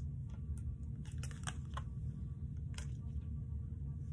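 Tarot cards being handled and laid down: irregular light clicks and taps, a few a second, over a steady low hum.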